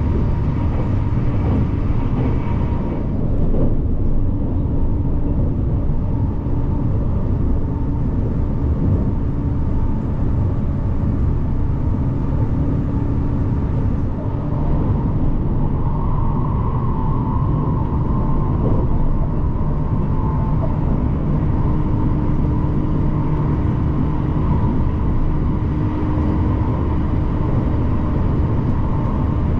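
Train running, a steady low rumble with faint steady tones over it.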